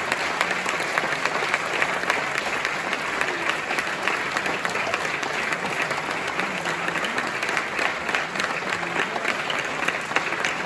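A large audience applauding a solo piano recital: many hands clapping in a dense, steady patter that does not let up.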